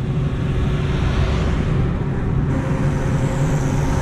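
Steady running of a vehicle: a continuous low motor hum under a rumble of motion noise, with a faint higher tone and hiss joining about two and a half seconds in.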